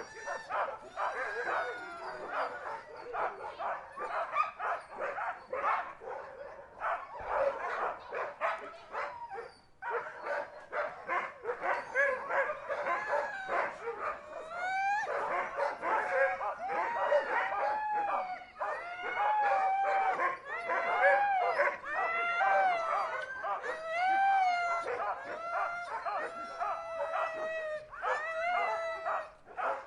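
A group of huskies barking and yipping over one another. From about halfway on, the pack turns more to drawn-out howls and whines that rise and fall in pitch.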